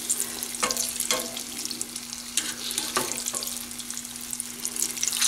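Bisquick-battered banana chunks deep-frying in hot oil held at about 350°F: a steady sizzle with a few scattered crackles, as a slotted metal skimmer stirs them in the pot.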